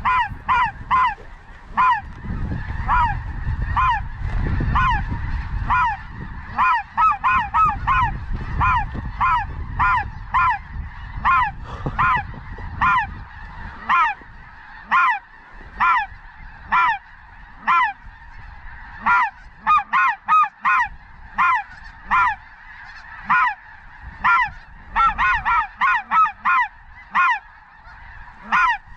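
Snow geese calling: short, high-pitched honking yelps repeated steadily, one to three a second, sometimes in quick clusters. Wind rumbles on the microphone through roughly the first half.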